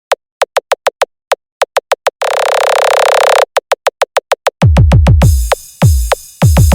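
Electronic battlemix dance music: a quick run of short synth-percussion stabs, a held buzzing synth note, then a string of hard kick drums with deep falling bass.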